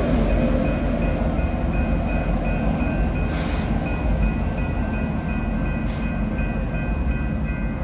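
Freight train rolling past, a steady rumble of cars on the rails with a faint regular ticking, and a few short hisses.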